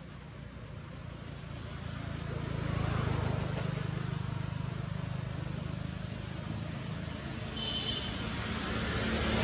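A motor vehicle engine humming, growing louder to about three seconds in, easing off, then building again near the end. A brief high chirp about eight seconds in.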